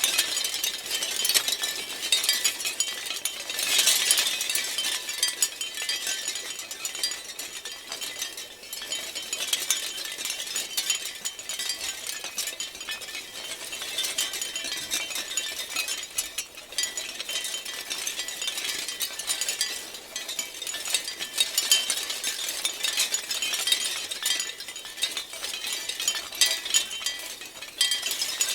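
A shell wind chime clattering continuously, its many shell pieces knocking against one another in a dense, high clinking rattle that swells and eases with the breeze.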